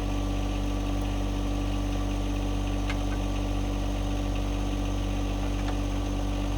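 John Deere 2025R compact tractor's three-cylinder diesel idling steadily, with a couple of faint metallic clicks.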